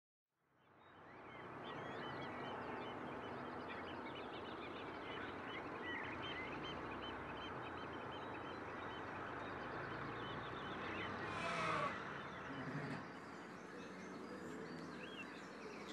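Countryside ambience fading in: a dense chorus of small birds chirping over a steady outdoor hiss, with one louder animal call a little before the end.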